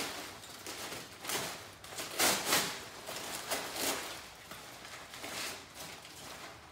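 Brown packing paper crinkling and rustling as it is pulled and crumpled off a wrapped item, in irregular bursts, loudest about two seconds in.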